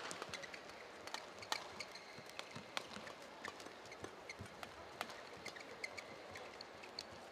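Badminton rally: sharp racket strikes on the shuttlecock every second or so, with short squeaks of players' shoes on the court mat over the low hum of an arena crowd.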